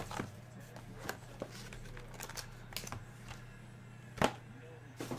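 Trading cards and packs being handled at a table: scattered light clicks and soft rustles, with one louder tap about four seconds in, over a steady low electrical hum.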